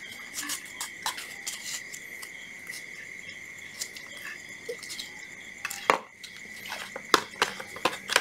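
Small plastic clicks and taps of a mode-selector knob being fitted to a cordless hammer drill's plastic body, turning into louder, sharper knocks from about six seconds in as the drill body and its battery pack are handled. A steady high, thin tone runs underneath.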